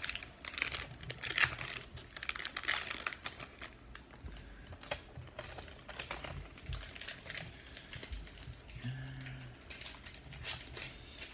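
1998-99 Finest basketball cards being flipped through and laid down one after another: quick, papery clicks and slaps, thickest in the first few seconds and sparser after.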